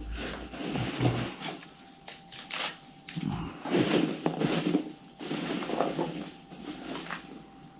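Snack packets and plastic wrappers being handled, with irregular rustling and crinkling and a few soft knocks as items are lifted from a box.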